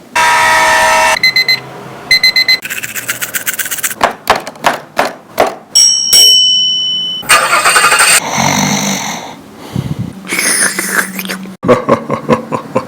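A rapid string of different short sound effects played one after another: a pitched tone, two short pairs of beeps, a run of fast clicks, a steady electronic tone, then bursts of hiss and low humming, some of them engine-like.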